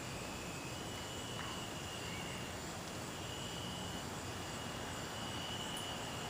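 Steady outdoor evening background noise with a faint, high-pitched steady trill that starts and stops every second or so, like an insect calling.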